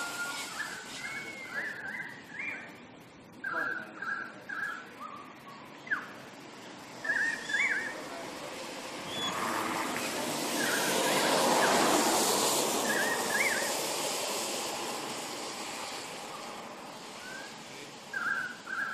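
Birds chirping in short, repeated calls, with a broad rushing noise that swells through the middle and fades again.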